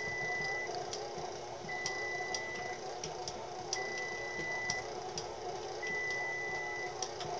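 KitchenAid Artisan stand mixer running with its dough hook kneading whole wheat bread dough: a steady motor hum with irregular knocks and slaps as the dough hits the bowl. A thin high tone about a second long repeats roughly every two seconds.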